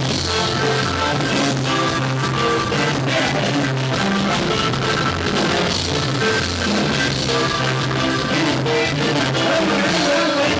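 A live regional Mexican band playing: accordion and guitar over drums, with a bouncing bass line of held low notes.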